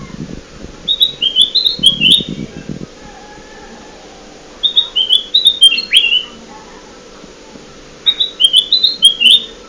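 Kutilang emas bulbul song used as a trapping lure: three phrases of quick, high whistled notes stepping up and down, a few seconds apart, over a low background hum.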